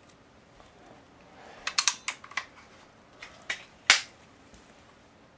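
Several sharp mechanical clicks from handling and readying a pump pellet pistol, then one loud, sharp report about four seconds in: the pistol firing a toothpick plugged with cigarette-filter cotton.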